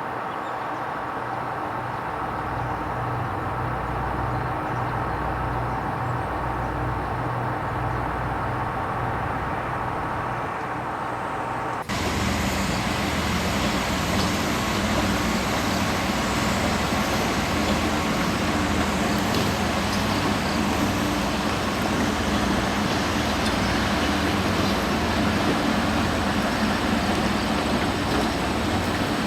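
Steady mechanical drone of vehicles or machinery, with several constant tones and a low pulsing throb. About twelve seconds in it switches suddenly to a louder, hissier drone.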